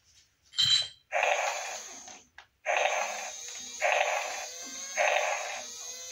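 Battery-operated walking dinosaur toy giving repeated electronic roars through its small speaker, about one a second, each starting suddenly and fading.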